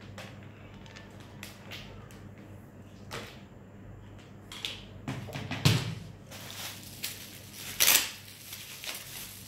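A parcel's packaging being handled and opened: scattered clicks and knocks, a thump about halfway, and a louder rustle near the end.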